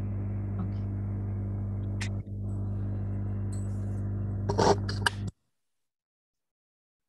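Steady electrical hum from an open microphone on a video call, with a brief dropout a little after two seconds and a few small clicks and rustles. It cuts off suddenly after about five seconds into dead silence.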